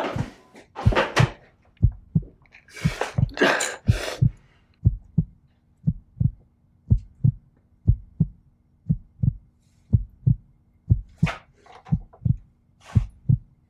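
Heartbeat sound effect: a steady lub-dub double thump about once a second. A few short hissing rushes sound over it in the first few seconds and again near the end.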